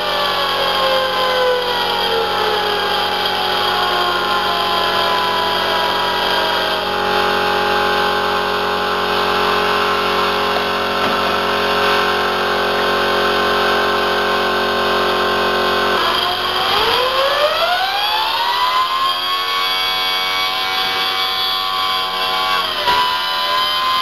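Air-driven 3D-printed plastic turbine engine winding down, its whine falling in pitch over the first few seconds. An air compressor then runs steadily while it refills. About two-thirds through, compressed air is blown into the turbine again and it spins up in a rising whine that levels off into a steady high whine.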